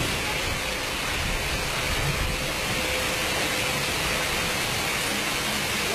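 Steady rush of large volumes of water cascading and spraying in a staged flash-flood special effect on a studio-tour set.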